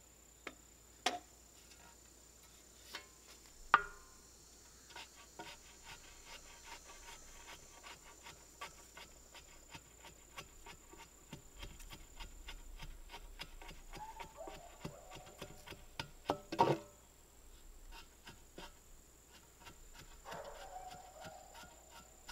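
Shovel working soil into a post hole around wooden posts: a few sharp knocks, the loudest about four seconds in, then a long run of small scrapes and taps about two a second, with a louder clatter around sixteen seconds in. A steady high insect drone runs underneath.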